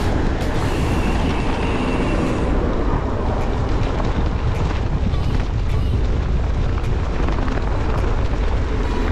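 Steady low rumble of wind on a GoPro's microphone and passing city traffic while cycling.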